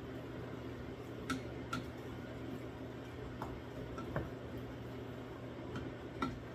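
Wooden spatula stirring beans and tomatoes in a stainless steel saucepan, with about eight light, sharp knocks of utensil against pan scattered through, over a steady low hum.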